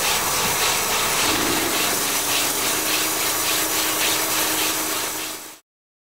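Harsh rasping of a tool working on wood, with a faint scrape repeating about three times a second and a steady hum joining about a second and a half in. It cuts off abruptly near the end.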